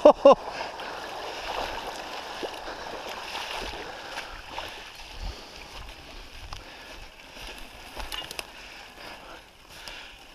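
Water sloshing and gurgling as a mountain bike moves slowly through a waterlogged forest track, with scattered small knocks.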